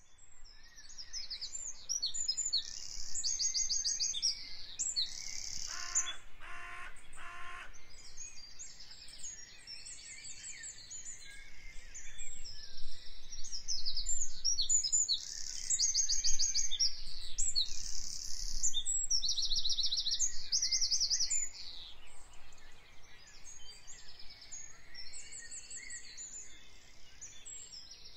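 Songbirds chirping and singing, with many quick high trills overlapping. About six seconds in there are three short, lower calls.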